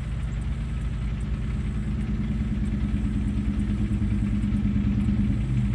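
Heavy diesel engine idling with a steady low drone that grows a little louder toward the end.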